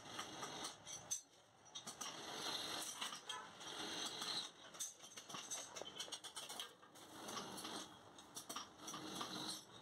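Irregular light clicks and metallic rattles from a steel tape measure and stainless-steel square tubing being handled during measuring and marking, with a quieter gap about a second in.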